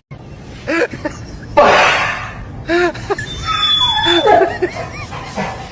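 People laughing in short bursts, with a loud hissing burst about one and a half seconds in.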